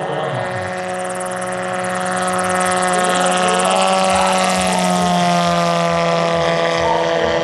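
Electric Hacker A150 motor and pusher propeller of a giant-scale RC MTOsport autogyro droning steadily on a low pass. It grows louder to about four or five seconds in, then drops slightly in pitch as it goes by.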